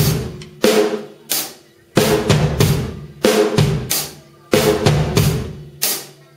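C&C Custom drum kit with TRX cymbals played in a loose, spaced groove: bass drum thuds and ringing snare hits with cymbal crashes, the hits about half a second to a second apart.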